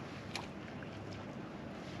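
Water noise around a kayak on the water, steady throughout, with one light knock about a third of a second in.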